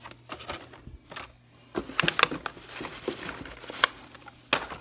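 Blister-packed Hot Wheels cars on cardboard backing cards being handled and shuffled in a box: rustling and crinkling of plastic and card, with a cluster of sharper clacks about two seconds in and two more single clacks near the end.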